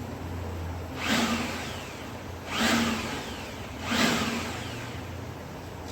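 Homemade LPG-fired turbo jet engine rig running: a steady low hum with three loud rushing surges about a second and a half apart, each tailing off with a falling pitch.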